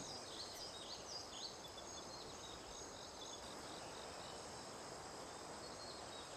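Faint outdoor ambience: a steady, high-pitched drone of insects, with a few faint short chirps in the first second or so.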